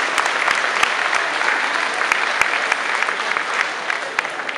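Audience applauding: dense clapping that slowly thins out and fades.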